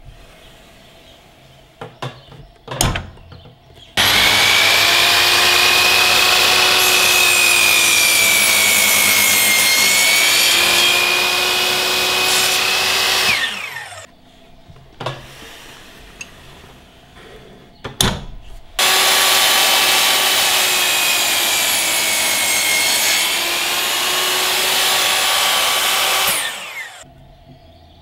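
Bosch GTM 12 JL miter saw making two cuts through a softwood board. Each time the motor starts abruptly and runs with a high whine that dips in pitch midway as the blade works through the wood, then falls in pitch as it stops. Clicks and knocks come from the saw's handle and locks before each cut.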